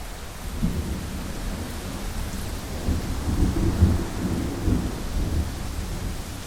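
Thunderstorm: a long roll of thunder rumbles in about half a second in, swells to its loudest midway, and fades near the end, over a steady hiss of heavy rain.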